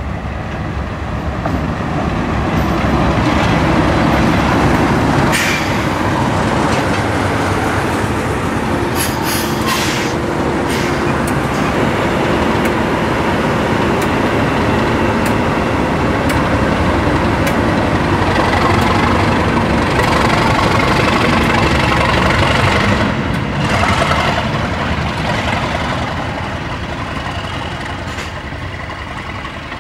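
Class 37 diesel-electric locomotive's English Electric V12 engine running loudly as it passes close by, with a few sharp clicks from the wheels on the rails; the sound fades away as it draws off near the end.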